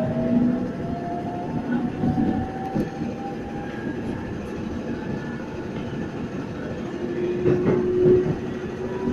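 Former JR 205 series electric commuter train accelerating away from a station, heard from inside the car. The motor whine rises slowly in pitch over the first few seconds over a running rumble of wheels on rail. Near the end come louder knocks as the wheels cross rail joints.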